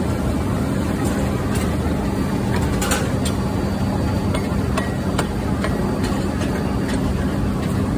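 Steady machinery hum holding one low tone, with scattered sharp ticks and knocks.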